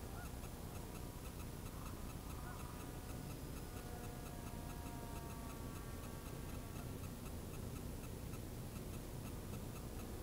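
Faint, steady rumble of wind on the microphone outdoors, with a quiet, even ticking throughout and a few faint, thin tones now and then.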